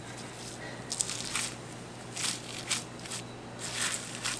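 A knife cutting and tearing through raw beef and its membrane, several short wet strokes a half-second to a second apart.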